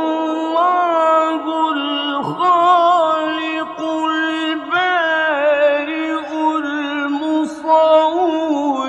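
A man's voice reciting the Quran in the melodic mujawwad style. He draws out long held notes with wavering, ornamented turns and starts a new phrase about two seconds in and again about five seconds in.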